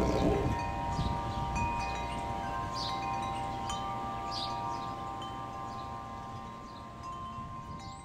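Metal tube wind chimes ringing in the breeze: tubes are struck now and then and hold long, overlapping tones. Wind rumbles on the microphone underneath, and the whole sound slowly fades.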